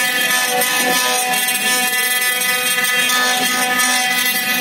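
CNC router's high-speed spindle running at a constant whine while its small cutter carves a relief into an engineered-wood board, with a steady hiss of cutting under the whine.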